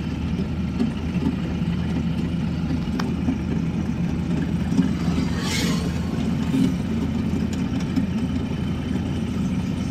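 Steady low engine and road rumble heard from inside a moving car, with a brief hiss about halfway through.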